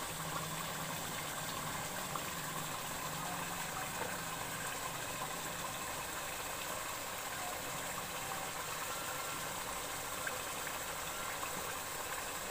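Beef stew simmering in a pot on the stove: a steady bubbling hiss.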